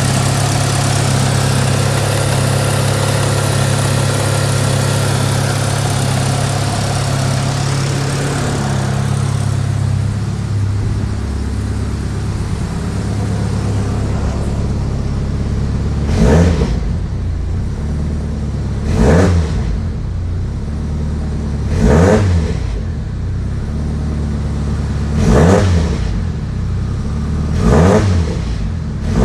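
Mitsubishi Lancer Evolution VII's turbocharged 4G63 four-cylinder engine idling high and steady, settling to a lower idle about a third of the way in, then blipped five times in short revs about three seconds apart.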